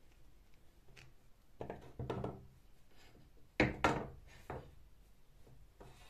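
Pliers working a corroded metal hose fitting loose on an old bike pump: a few short grinding scrapes, then two sharp knocks close together about halfway in and a lighter one just after.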